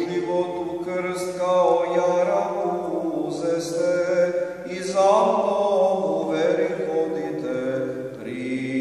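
Orthodox liturgical chant: a voice intoning prayer on a simple melody, holding long notes and stepping between pitches without pause.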